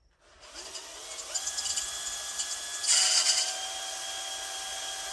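Electric drill spinning up with a rising whine, then running steadily as it drills out the chain-catcher bolt hole in a chainsaw's magnesium case for a helicoil. About three seconds in there is a brief louder stretch of cutting noise as the bit bites into the magnesium.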